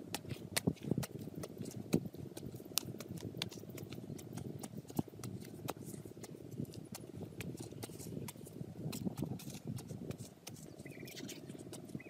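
A bamboo stick jabbing and scraping into dry, stony soil, with irregular sharp clicks and crunches as clods and pebbles break loose.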